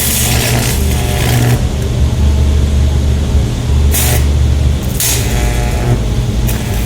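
Car speakers fed straight from a 110-volt power inverter's AC output, giving a loud, steady mains hum with several harsh crackling, buzzing bursts as the cones are overdriven.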